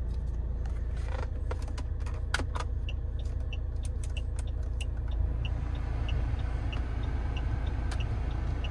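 Saab 9-3 2.0T's turbocharged four-cylinder engine idling, heard from inside the cabin, with clicks of dashboard controls in the first few seconds and a light regular tick about twice a second. About five seconds in, a rush of air comes up as the climate-control fan is turned up.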